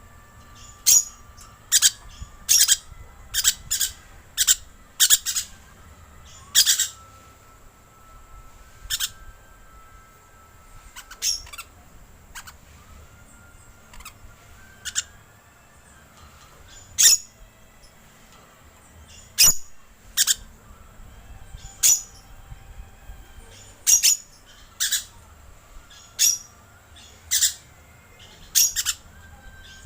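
Green lorikeet calls: short, sharp, high screeches repeated irregularly about once a second, with fainter drawn-out whistled notes between them.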